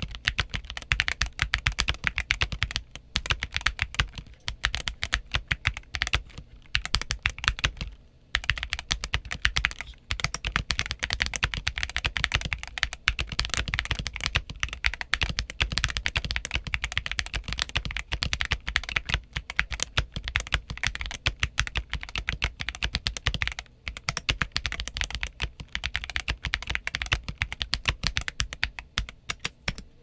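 Continuous typing on a 60% mechanical keyboard: Moondrop Tessence switches on an aluminium plate and DZ60RGB PCB in a 3D-printed PETG case, under MT3 keycaps, with stabilizers the builder says still need tuning. Dense keystroke clacks with a few brief pauses, stopping just before the end.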